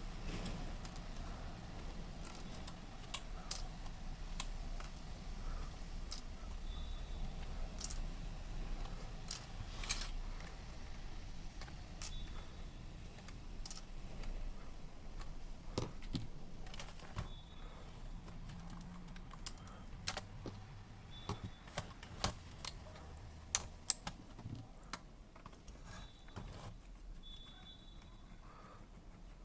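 Irregular light clicks and clinks of small tools and parts being handled while working on a boombox's circuit boards, over a low steady hum.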